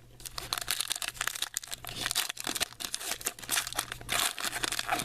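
Crinkling and rustling of trading-card pack wrappers, with short tearing sounds, as baseball card packs are opened and handled.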